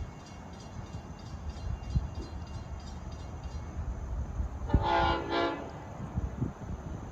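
Approaching diesel train with a low rumble; the locomotive's Nathan Airchime K5LLA five-chime horn sounds one short blast about five seconds in, briefly broken just before it ends.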